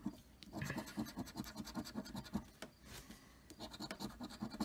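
Scratch-off lottery ticket being scratched: quick, rapid scraping strokes taking the coating off the play area, with a short pause a little past halfway before the scraping resumes.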